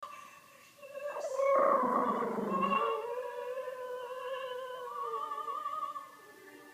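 A dog howling along with music from a TV, in long wavering tones that fade about six seconds in.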